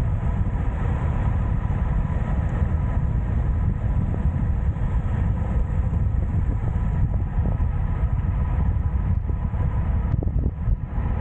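Wind rushing and buffeting over the microphone of a bike moving at speed downhill, a steady low rumble with a faint hum beneath it.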